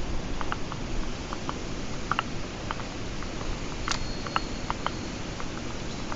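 Mountain stream water rushing steadily, with scattered light clicks and patter through it and a brief faint high tone about four seconds in.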